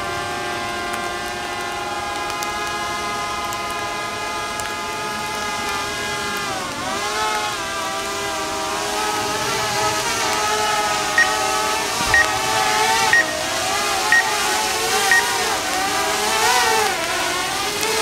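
Quadcopter drone flying overhead: a steady multi-toned propeller whine that dips in pitch and recovers about a third of the way in, then wavers up and down as the drone manoeuvres. From a little past halfway, short high beeps sound about once a second.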